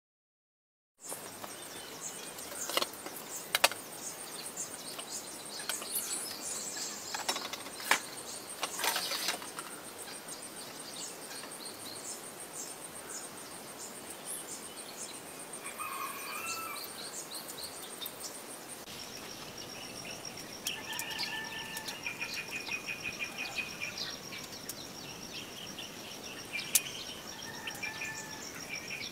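Outdoor background of birds chirping and insects trilling. A steady high insect trill drops to a lower pitch about two-thirds of the way through, and a few sharp clicks or knocks come in the first third. The first second is dead silence.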